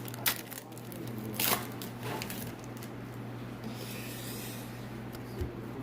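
Trading-card pack wrapper and cards being handled and torn open, rustling and scraping, with two short sharp crinkles near the start and about a second and a half in. A steady low hum sits underneath.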